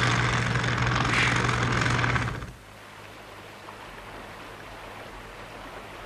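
A motor-driven hand track tool working into a wooden sleeper runs loudly, with a steady engine hum under a harsh rattle, and cuts off abruptly about two and a half seconds in. After that comes a quieter, steady rush of flowing river water.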